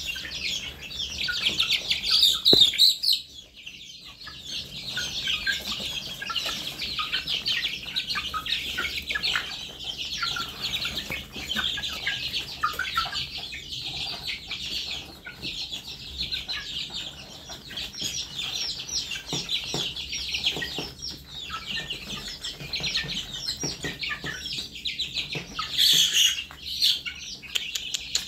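A flock of young chickens calling constantly while they feed, a dense chorus of short, high, overlapping peeps. There are louder bursts about two and a half seconds in and again near the end.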